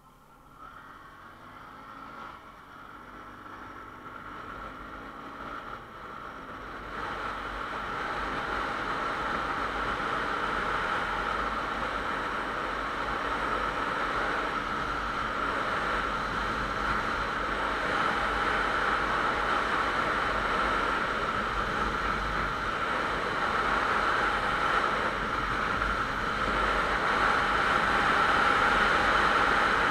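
Motorcycle pulling away and picking up speed, its engine note rising over the first few seconds, then wind rushing over the microphone at a steady cruise, growing louder and covering the engine.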